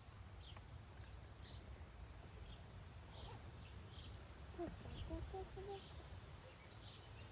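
Faint outdoor birdsong: short, high, downward chirps repeating every half second to a second, with a few lower, short calls about two thirds of the way through, over a low rumble.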